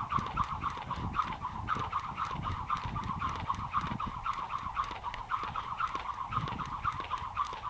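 Jump rope doing double unders: the rope whirs and ticks in an even rhythm, about four passes a second, over the low thud of the landings.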